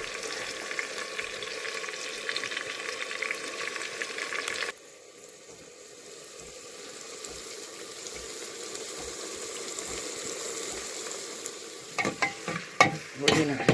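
Food sizzling as it fries in a pan. The sizzle drops suddenly a few seconds in and then builds again, and near the end a utensil clatters and scrapes against the pan in quick strokes.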